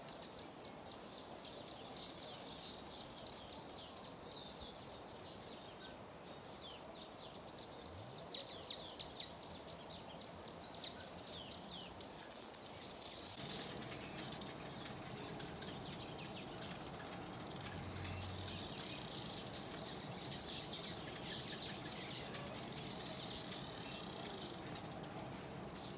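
Weaver birds chattering at their nesting colony: a dense, unbroken mix of short high chirps.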